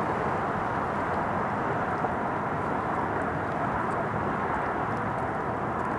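Boeing 747-8F freighter's four GEnx-2B jet engines at climb power just after takeoff: a steady, even rush of jet noise with no high whine.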